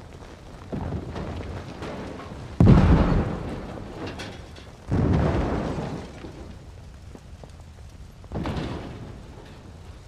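Four deep booming hits, each starting suddenly and dying away slowly, a few seconds apart. The second is the loudest.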